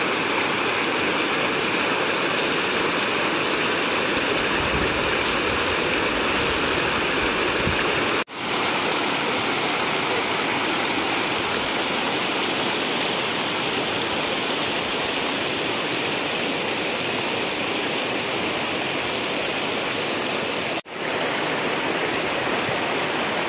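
River current rushing, a loud steady wash of water noise that cuts out for an instant twice, about a third of the way in and near the end.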